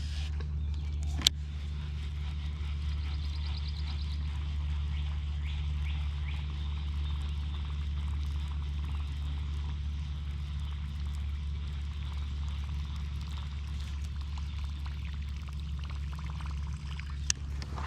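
Steady low electric hum of a MotorGuide trolling motor running, with a sharp click about a second in and another near the end.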